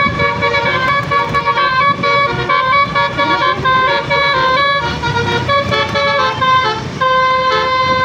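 Tour bus's multi-tone telolet horn playing a tune of quick stepped notes, ending on a longer held note near the end, over the low rumble of the bus engine.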